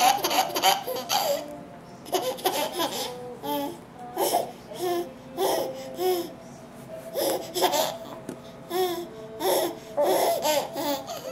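A baby laughing in repeated short bursts, set off by the sneezes just before.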